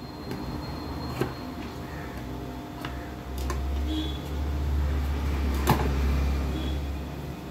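Tailoring scissors cutting cloth, with a few sharp clicks of the blades. A low rumble runs through the second half.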